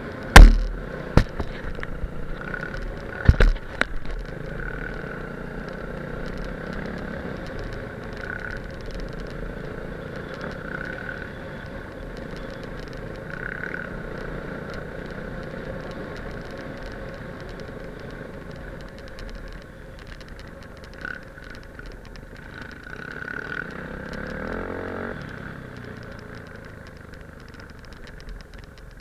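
Enduro motorcycle engine running steadily while riding a gravel track, with wind and road rush. Several sharp knocks come in the first few seconds, the loudest about half a second in, and the engine swells and eases off briefly near the end.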